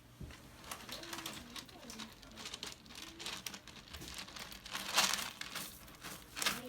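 Kitten scratching and digging in cat litter, a run of irregular rustling scrapes with a louder flurry about five seconds in, and a few faint short mews between them.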